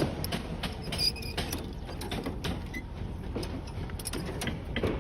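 Scattered light clicks and rattles of hand work on steel rebar, over a steady low background noise.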